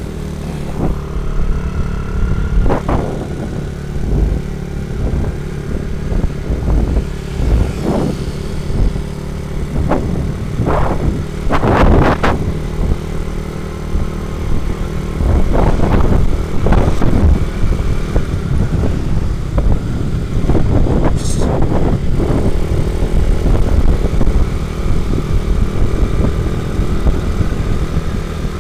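Motorcycle engine running with a steady low drone, overlaid by short swells of rushing noise every second or two, the strongest about twelve seconds in.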